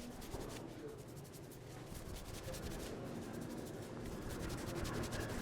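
Fingers rubbing and scratching through hair on the scalp during a barber's head massage: a steady run of rapid, fine, scratchy strokes.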